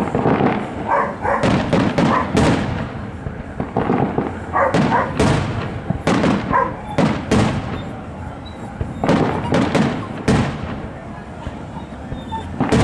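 Aerial fireworks shells bursting in quick succession: many sharp bangs, at times several a second, each trailing off in an echo.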